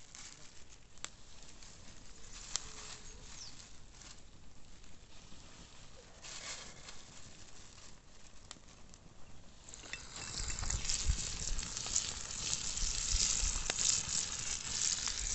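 Floured fish fillets (cabeza amarga) frying in hot oil in a pan over a wood fire. At first there is a faint sizzle with a few small clicks. About ten seconds in, the fish goes into the oil and a much louder, dense sizzle takes over.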